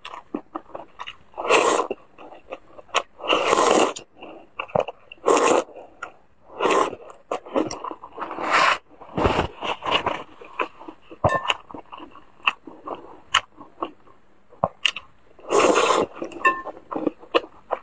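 Close-miked mukbang eating of wide noodles in broth: about half a dozen loud slurps, each lasting up to a second, with wet chewing and sharp mouth clicks in between.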